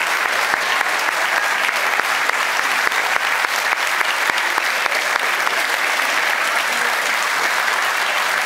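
Large theatre audience applauding steadily: a dense, unbroken mass of clapping hands from a full house.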